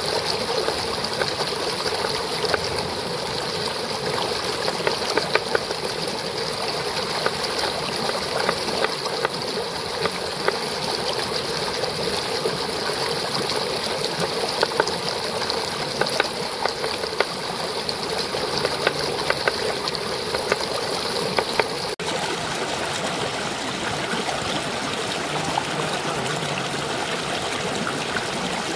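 Shallow rocky stream running steadily over stones, with a cleaver chopping on a wooden cutting board in quick, irregular taps; the chopping stops about three-quarters of the way through, leaving only the stream.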